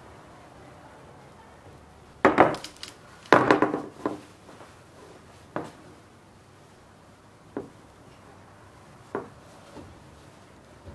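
A metal baking tray being set down on a wooden table: two loud knocks about two seconds in, then three lighter knocks a couple of seconds apart.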